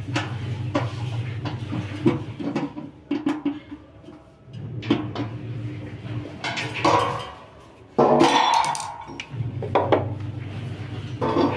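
Metal clinks and scrapes of a hand tool working the bolts of a satellite dish's metal mounting bracket. A louder clatter comes about two-thirds of the way through as the dish is shifted, over a steady low hum.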